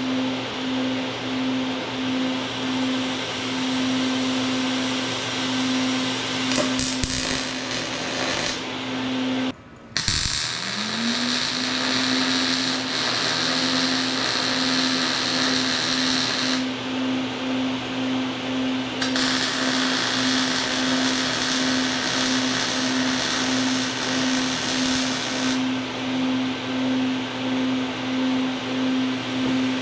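Arc welding: three stretches of crackling hiss from the welding arc, the longest about six seconds, over a steady, pulsing machine hum. About ten seconds in, all sound drops out for a moment and the hum comes back rising in pitch.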